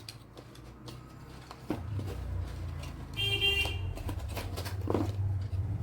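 A steady low rumble with a short, high horn-like toot about three seconds in, and a few light clicks.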